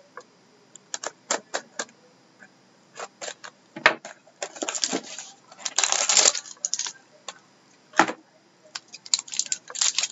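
Shrink-wrap on a cardboard trading-card box being slit with a hobby knife and then torn off by hand: scattered sharp clicks and taps, with two longer bursts of plastic crinkling about halfway through and more crinkling near the end.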